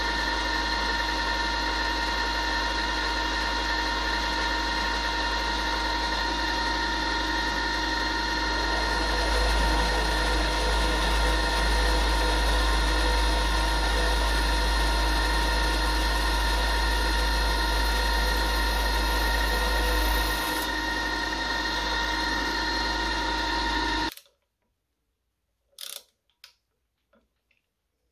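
Mini mill's spindle motor running with a steady whine and hum while an end mill cuts holes in a metal plate, a little louder from about nine to twenty seconds in, then stopping suddenly about four seconds before the end. A few faint clicks follow, from a screwdriver turning small screws.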